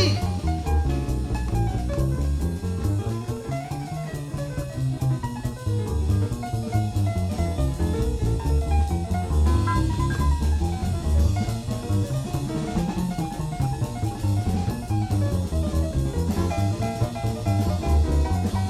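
Live jazz trio of piano, double bass and drums playing an instrumental chorus, with no vocal, just after the singer's line ends.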